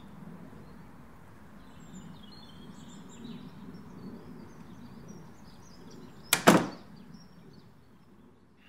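Faint outdoor background noise with a few high chirps, then a door shuts with a loud bang about six seconds in: two quick impacts close together, dying away quickly.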